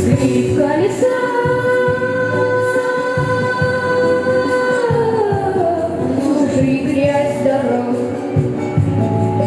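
A child singing with a backing track: the voice slides up into one long held note, holds it for about four seconds, then glides down into the next phrase.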